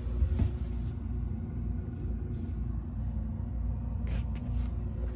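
Steady low mechanical hum and rumble, with a few brief knocks just after the start and again about four seconds in.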